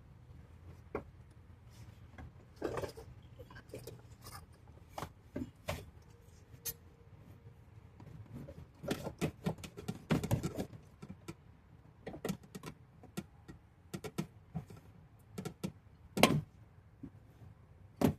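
Irregular clicks, knocks and light rattles of parts and tools being handled while working on a car door. A cluster of knocks comes around the middle, and the loudest single knocks come near the end.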